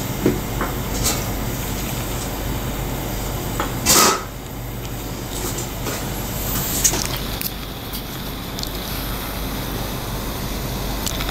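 Steady low hum of a small restaurant room, with a few light clicks and knocks at the counter and a short, loud hiss about four seconds in.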